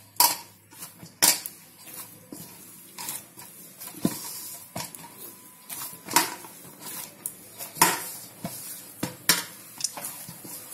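Dough being kneaded by hand in a stainless steel bowl: irregular knocks of knuckles and dough pressing against the steel, roughly one a second.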